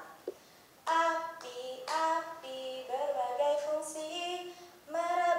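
A woman singing a children's song, phrase by phrase in short held notes; the singing starts about a second in.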